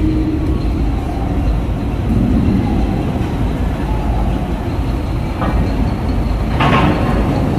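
Heavy truck's diesel engine running close by, a loud steady low rumble, with two short sharp noises a little over a second apart near the end.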